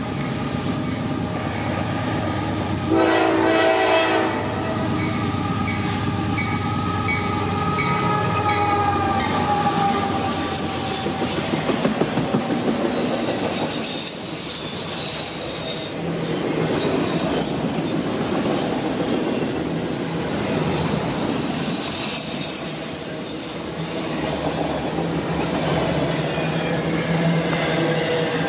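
Freight train passing close by: the locomotive's air horn sounds loudly about three seconds in, its tones trailing on and sliding lower over the next several seconds as the engine goes past. Then a long string of autorack cars rolls by with steady rumbling, wheels clacking and brief high wheel squeals.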